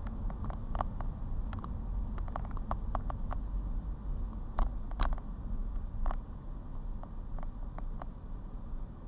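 A car driving with a steady low road rumble, and raindrops ticking irregularly on the car, thick at first and then more scattered.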